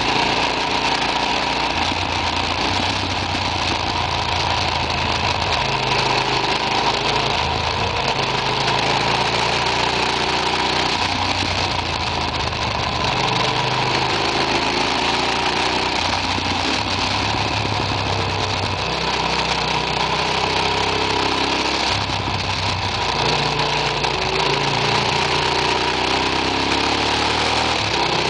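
Motorcycle engine heard from on board while riding, its pitch repeatedly rising as it accelerates and dropping back at each gear change, under a steady rush of wind noise.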